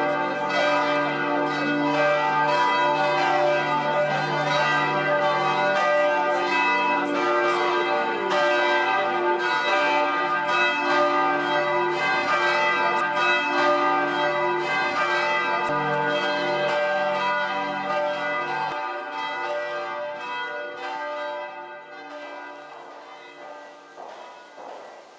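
Church bells ringing in a dense peal, with many strikes and long overlapping tones. The peal dies away over the last several seconds.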